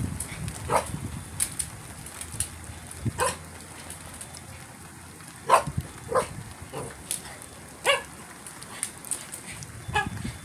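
A dog barking: a string of short single barks at uneven intervals, about a dozen in all.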